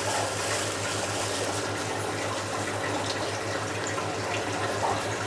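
Steady sound of running water over a low, even hum.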